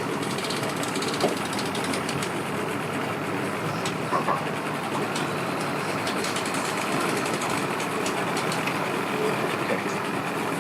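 Steady hum of engines running, with no single motor standing out.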